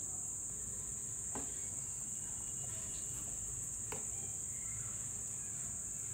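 A steady high-pitched whine runs throughout, under a couple of faint knocks of a spoon against the pan as cooked kidney beans are stirred into masala gravy.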